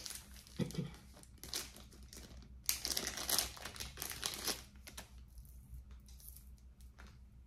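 Packaging bags crinkling and rustling by hand as jewelry is unwrapped, in several irregular bursts that fade after about five seconds into a few faint rustles and small clicks.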